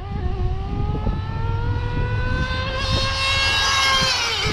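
Small nitro engine of a Kyosho Inferno GT2 RC car accelerating on a speed pass. Its pitch climbs steadily for about four seconds, then drops near the end as it comes off the throttle.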